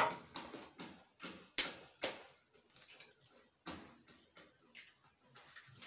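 Irregular light taps and clicks of hands working with small bowls and utensils at a kitchen counter, with two sharper knocks about one and a half and two seconds in.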